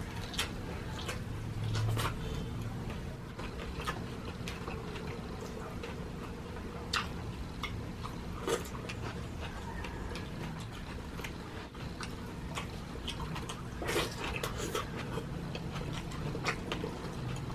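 Close-up eating sounds: chewing and wet mouth noises, with scattered sharp clicks over a steady low hum.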